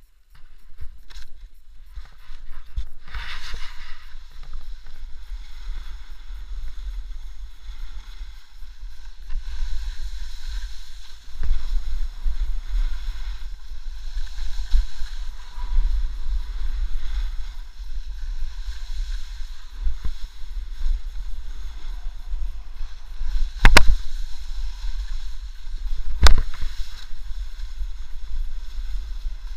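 Wind buffeting a helmet-mounted camera's microphone during a downhill run on snow, a steady low rumble. Under it is the uneven hiss of sliding and scraping over the snow surface. Two sharp knocks come a couple of seconds apart near the end.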